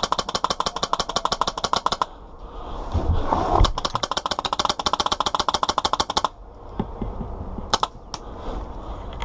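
Airsoft gun firing on full auto: a rapid stream of sharp clacks, about 13 shots a second, in two long bursts, the second starting about two and a half seconds in and running about four seconds. A few single clicks follow near the end.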